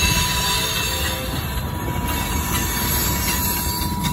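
Freight train rolling past close by: the steady rumble of covered hoppers and tank cars on steel rails, with a thin, steady wheel squeal over it.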